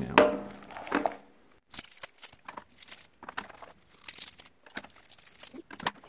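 Clear plastic battery packaging crinkling and tearing, then four AA batteries handled and pressed into the hub's plastic battery compartment: a scatter of short rustles and small clicks.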